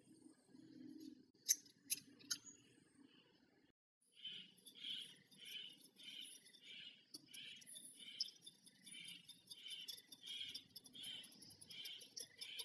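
Wire whisk beating milk and eggs in a glass bowl: faint, even strokes about twice a second, the wires scraping and splashing through the liquid against the glass. A few light clicks come before the whisking starts, about four seconds in.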